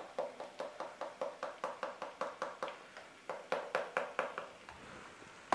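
A plastic spice packet tapped and shaken over a kadhai to get the Kashmiri chilli powder out: quick, even taps, about four or five a second, which stop about four and a half seconds in.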